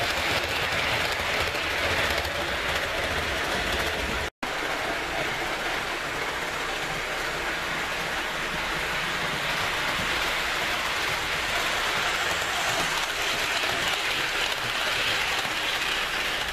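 HO-scale Proto 2000 EMD GP30 model locomotive with onboard sound running on the layout with its commuter cars: a steady hiss of wheels rolling on track, mixed with the model's diesel sounds. The sound cuts out briefly about four seconds in, then the same steady running noise carries on.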